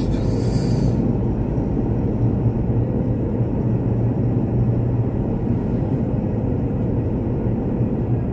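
Steady road and engine noise of a Mitsubishi Pajero heard from inside its cabin as it drives slowly, a low rumble with no speech over it. A brief hiss comes in the first second.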